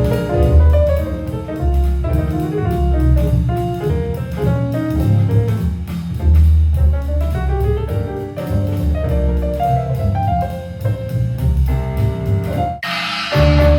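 Jazz with double bass, piano and drums, played through a Harman Kardon Luna portable speaker at half volume. A brighter, hissing wash comes in near the end.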